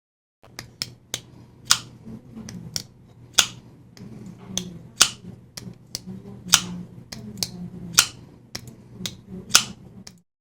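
Spyderco Para 3 folding knife being opened and closed over and over, its blade and compression lock snapping with sharp clicks about every second and a half and lighter clicks between. The lock bar is being checked after adjustment, because it had been catching the flat of the blade tang instead of the angled part.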